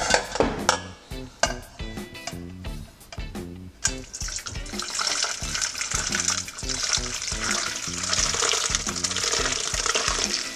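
Homemade fish stock poured from a stainless steel pot through a metal conical strainer into another pot, as a steady splashing pour from about four seconds in. It follows a few sharp metallic knocks of the pots being handled.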